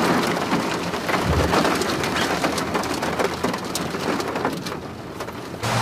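Steady rain falling, a dense hiss dotted with many separate drop hits. It cuts off abruptly near the end.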